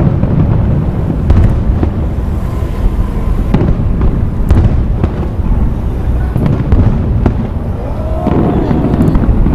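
Fireworks display: a continuous rumble of booming shell bursts, with several sharp bangs standing out.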